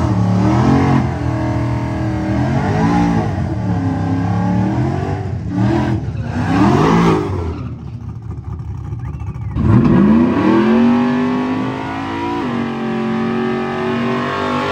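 Car engines revving hard in repeated blips, the pitch climbing and dropping several times. About ten seconds in, an engine revs up sharply and holds high revs while a car does a burnout and launches.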